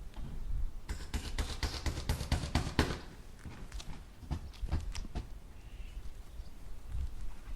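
Hammer driving nails: a quick run of blows for about two seconds, then a few slower, spaced strikes.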